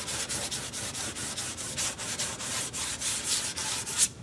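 220-grit sandpaper rubbed quickly back and forth along painted wood molding by hand, about four to five scratchy strokes a second, stopping just before the end. The sanding feathers chipped paint edges smooth.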